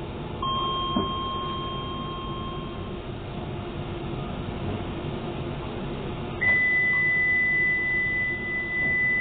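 Electronic warning tones inside a Docklands Light Railway train standing at a station, over the car's steady hum: a steady beep tone about half a second in, lasting about two and a half seconds, then a louder, higher steady tone from about six seconds in, lasting about three seconds. These are typical of the train's door warning signals.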